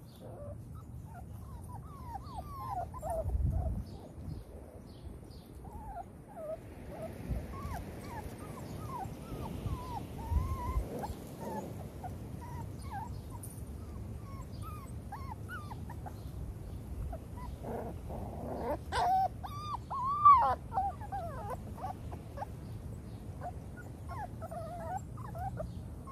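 A litter of six-week-old XL pitbull puppies whining, with many short high-pitched whines overlapping one another. A louder cluster of calls comes about twenty seconds in.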